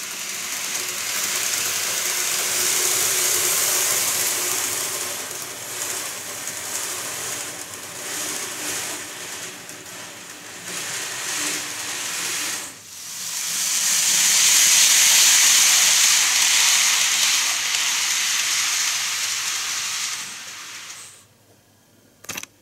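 A loud rushing hiss that swells and fades, breaks off briefly about 13 seconds in, swells again and then drops away near the end.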